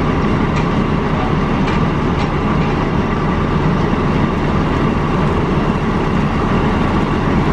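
Heavy engine running steadily: a loud, even drone with a few faint ticks.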